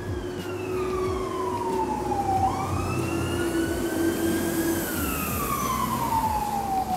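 Emergency vehicle siren wailing: a slow wail that falls in pitch, climbs again about halfway through, then falls once more near the end.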